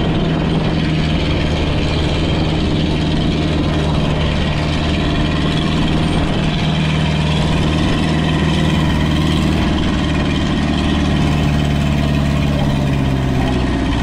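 Fishing boat's engine running steadily, its pitch shifting slightly near the end.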